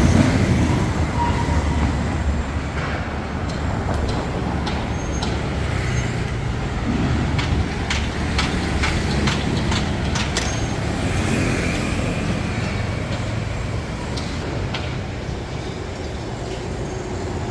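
City street traffic: vehicles running past in a steady rumble, with a scatter of short sharp clicks and knocks through the middle.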